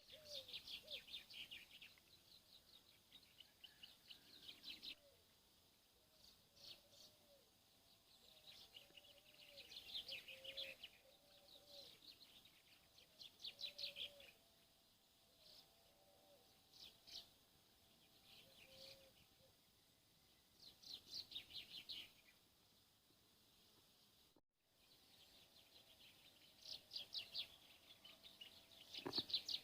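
Songbirds singing, with rapid trilled phrases of one to two seconds repeated every few seconds, over fainter short, lower calls.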